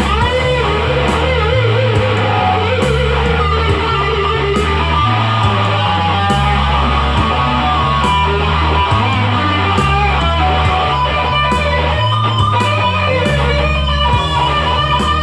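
Instrumental rock music: an electric guitar plays over a bass line and a steady beat, with bent, gliding lead notes in the first few seconds.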